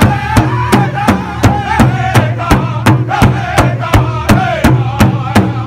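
Powwow drum group singing an intertribal song: several men strike a large rawhide drum in unison, about three to four strokes a second, with high-pitched singing over the beat.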